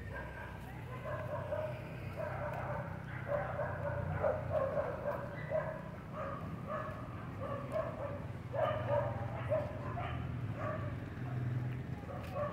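A dog barking repeatedly, short barks coming in quick runs, over a low steady hum.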